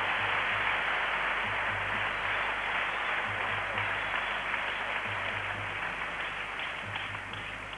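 Large arena crowd applauding, the applause slowly dying away and thinning into scattered individual claps near the end.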